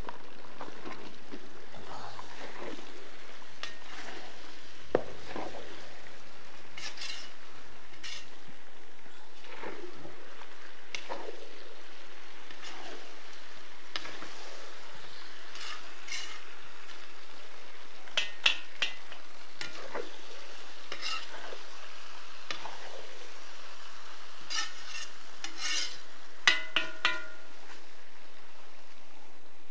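Beef tripe frying in oil in a kazan, sizzling steadily while it is stirred, with a utensil scraping and clinking against the pot in short runs about two-thirds of the way through and again near the end.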